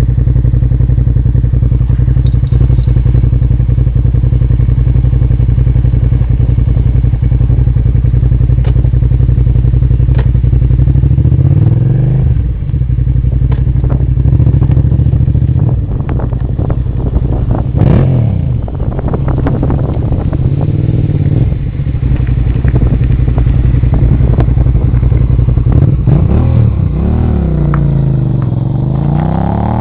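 Suzuki SV650's V-twin engine idling steadily, then revved with a series of throttle blips, each rising and falling in pitch, from about twelve seconds in.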